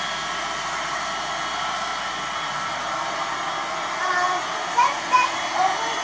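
Small corded stick vacuum cleaner running steadily, its motor giving an even whirring hiss.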